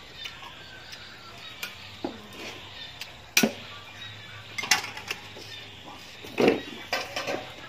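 Close-up eating sounds of a person eating chicken by hand: chewing, lip smacks and sucking at a bone, heard as scattered clicks and smacks, the loudest about three and a half seconds in and again near the end.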